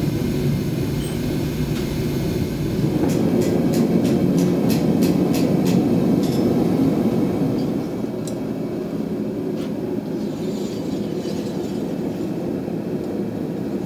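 Five-burner gas forge running, a steady low rushing noise that swells about three seconds in and drops back a little before the halfway point. A quick run of light, sharp ticks sounds over it in the first half.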